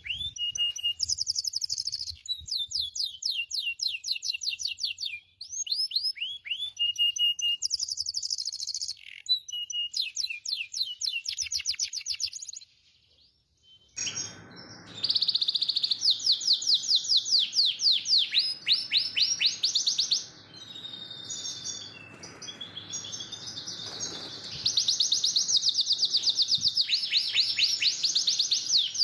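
Domestic canary singing continuously: long rolls of rapid trills and repeated chirps, mixed with sweeping whistled notes. The song breaks off briefly about 13 seconds in, then resumes over a faint steady hiss.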